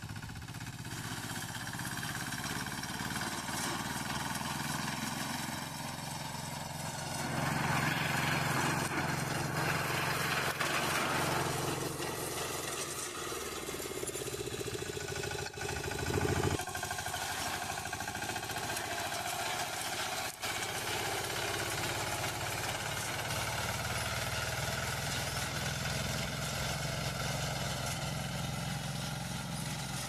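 Engine of a self-propelled reaper binder running steadily under load as it cuts wheat. It grows louder and noisier for a few seconds about a quarter of the way in.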